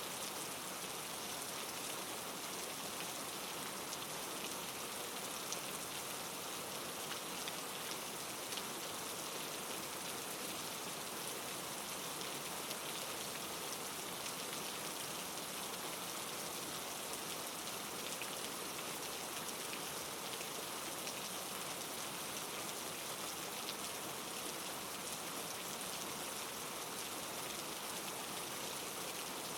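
Steady rain ambience used as white noise, with faint scattered crackles of a wood fire mixed in.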